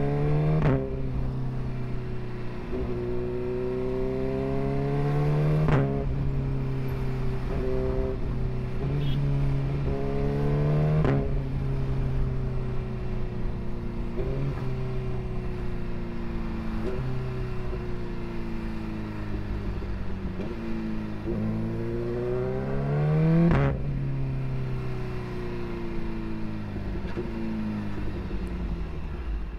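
Suzuki GSX-R1000's inline-four engine pulling through the gears: its pitch climbs, then drops sharply at each upshift, about four times, with a sharp crack at each gear change. Between shifts the pitch sags slowly as the throttle eases, over a low wind rumble.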